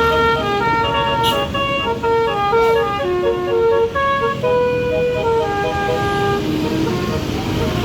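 A bus's basuri musical horn plays a tune of held notes that step up and down in pitch, over the low rumble of the vehicle. The tune thins out just before the end.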